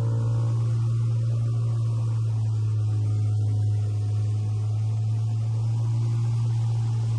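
A steady low hum, with the fading ring of higher tones in the first half-second.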